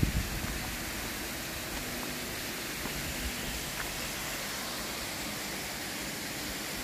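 Steady hiss of falling water, with a brief low buffet of wind on the microphone at the very start.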